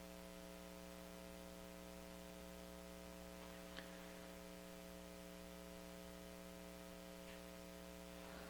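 Faint, steady electrical mains hum made of several layered tones, with one faint click about four seconds in.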